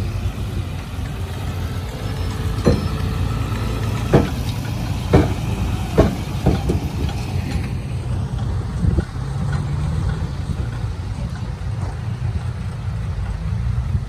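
Heavy diesel earthmoving machinery running steadily with a low engine rumble, broken by a run of sharp knocks and clanks between about three and seven seconds in.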